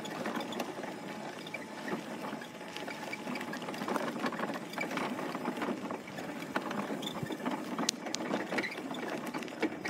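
Steady mechanical rattling with scattered clicks from a vehicle being ridden over bumpy ground.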